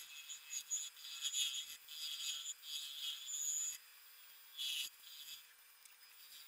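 Gouge cutting the outside of a spinning willow-and-resin bowl on an Omega Stubby wood lathe: a run of hissing cuts through most of the first four seconds and one short cut near five seconds, then only a faint steady hum from the lathe.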